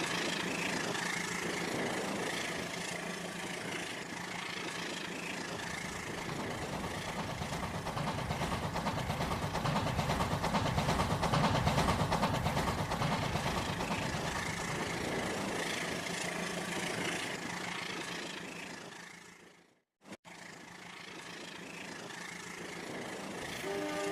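Rail King toy train's small electric motor and plastic wheels running along toy track: a steady whirring rattle that grows louder toward the middle, then fades. It cuts out abruptly near the end and starts again.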